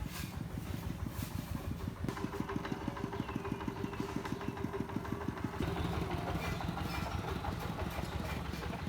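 A motor running with a rapid, even pulse, which changes and grows a little louder about five and a half seconds in.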